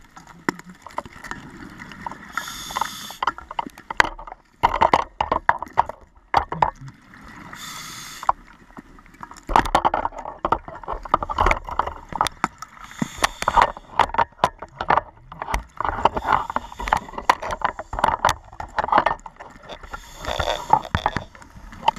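Water sloshing and gurgling around a camera held underwater, with many irregular knocks and clicks and brief bursts of hiss.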